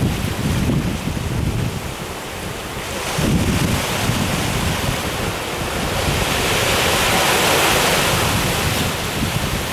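Ocean surf breaking and washing onto a beach, with wind buffeting the microphone in gusty low rumbles. The hiss of a wave's white water swells over the last few seconds.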